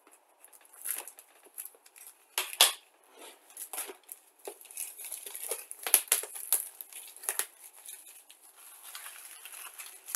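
Plastic shrink wrap crinkling and tearing as it is pulled off a cardboard model kit box, a run of irregular crackles and sharp clicks.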